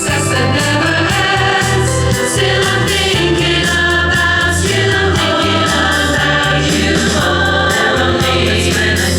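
Music with a choir singing over a bass line that moves in steps.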